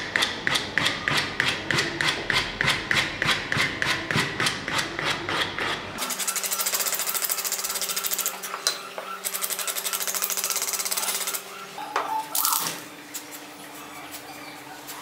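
A wooden spoon handle being sanded by hand: quick rhythmic rasping strokes, about four or five a second, for the first six seconds. The sound then turns to a steadier rubbing hiss over a faint steady hum, and a few quieter scrapes follow near the end.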